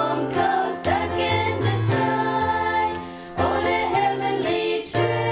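Voices singing a Christian hymn in phrases over sustained instrumental accompaniment, with a changing bass line and a brief dip between phrases about three seconds in.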